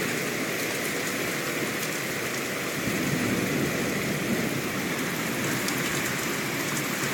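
Steady rain pouring down in a thunderstorm, the hail having just turned back to rain.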